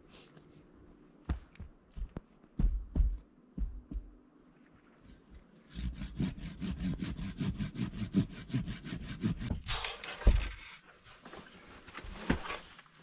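A few footsteps crunching in deep snow, then a hand saw cutting through wood in even back-and-forth strokes for about four seconds.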